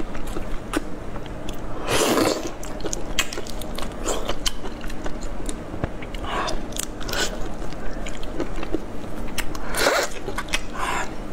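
Close-miked cracking and crackling of a large soy-sauce-marinated prawn's shell as gloved hands pull it apart and peel it. Many small sharp clicks run through, with several louder crunches.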